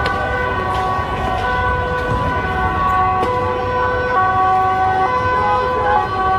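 Several police sirens sounding at once, each a two-tone siren that steps between a high and a low note about once a second, over traffic noise.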